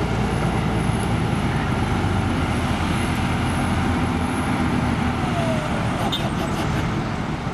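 Claas Axion tractor's diesel engine running steadily under heavy load as it pulls a weight-transfer sled down the track.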